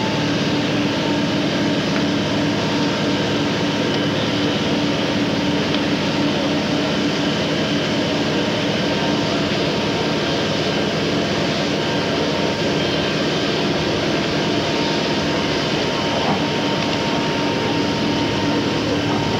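Steady, unbroken engine drone with a constant hum, from fire engine pumps running to feed the hose streams.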